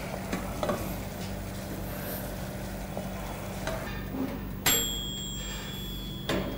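Countertop toaster oven with a steady low hum. About two-thirds of the way in, a sharp ding rings on for a second or two: the oven's timer going off as the baking finishes. Near the end there is a clunk as the oven door is pulled open.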